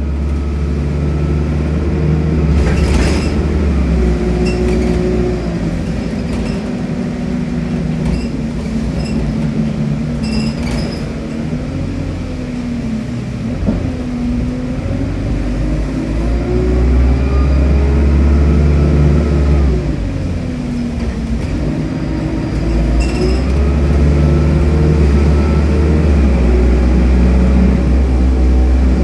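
Alexander Dennis Enviro200 single-deck bus's diesel engine heard from inside the saloon, pulling hard: the engine note climbs and then drops back at each automatic gear change, several times over. A few sharp rattles from the bus interior sound over the low drone.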